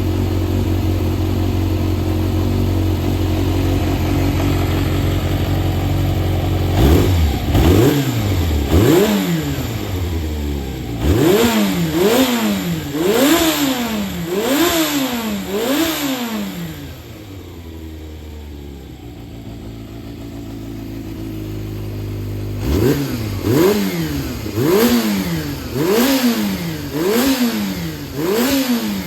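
Yamaha XJR400 (4HM) air-cooled inline-four engine assembly idling steadily, then revved in quick blips about once a second, settling back to a lower idle near the middle before more blips near the end. Running without abnormal noise, as the seller states.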